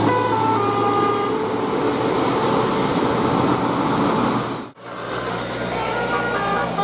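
Bus 'telolet' multi-tone air horn of the Basuri type playing a melody of short stepped notes, with a bus engine running underneath. The notes fade into a noisy stretch, the sound cuts out sharply about two-thirds through, and the horn melody starts again near the end.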